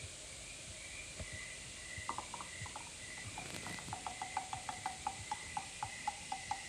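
A rapid run of short, sharp clicks of the same pitch, about six a second: a few start about two seconds in and they settle into a steady series from about halfway. Behind them, crickets chirp steadily.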